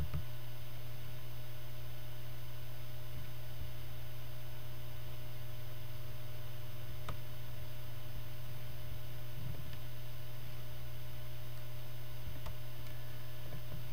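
Steady electrical mains hum with faint hiss, with a few faint clicks.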